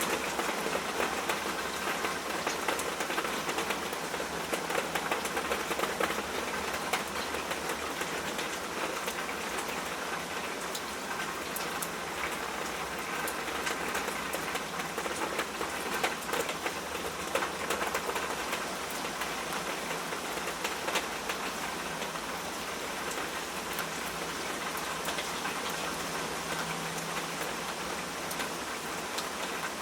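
Steady rain falling, a dense even hiss with many small drop ticks on a surface.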